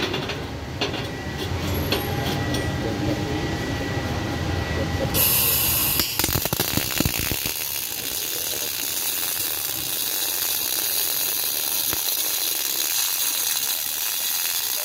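MIG welding arc from a Hồng Ký MIG 350 Pro with a separate wire feeder, running solid 1.2 mm wire under shielding gas. The arc strikes about five seconds in, crackles briefly, then burns with a steady hiss. Before it comes a low rumble with a few clicks.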